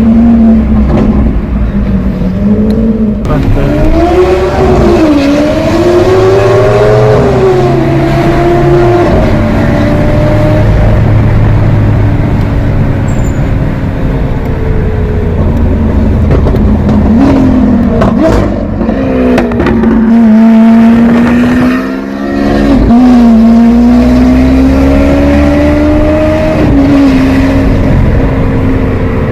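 Lamborghini Aventador SV's 6.5-litre V12 running through a Capristo exhaust at low to moderate revs, its pitch rising and falling repeatedly as it is revved and driven. There is a brief drop in loudness about 22 seconds in.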